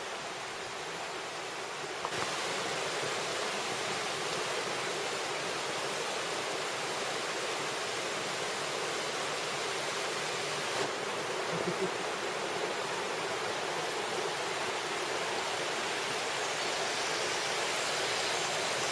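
Steady rushing of river water tumbling through a rocky gorge, a continuous even roar that gets a little louder about two seconds in.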